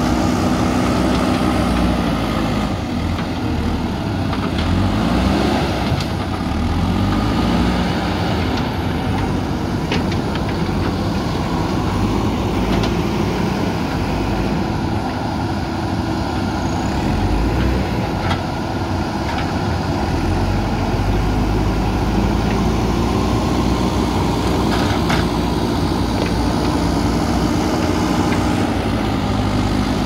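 JCB 3DX backhoe loader's diesel engine running under load, its pitch rising and falling repeatedly as the machine works its front bucket into a heap of earth and rubble. A few short sharp knocks sound over it.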